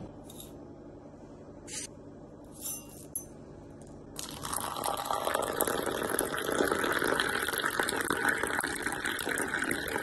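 A few faint clicks, then from about four seconds in, a steady stream of milky coffee poured from a height into a stainless steel tumbler, splashing and frothing.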